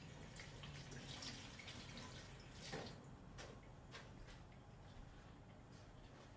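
Faint running water from a kitchen tap into a sink, with small drips and splashes as hands are washed under it.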